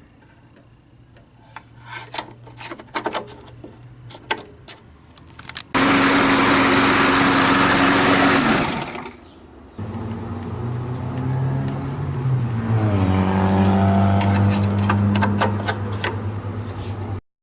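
Murray AeroVac lawn mower's small gasoline engine being started: a few clicks, then it bursts into running for about three seconds and dies. About a second later it starts again and runs steadily, settling once to a lower speed, until it cuts off abruptly.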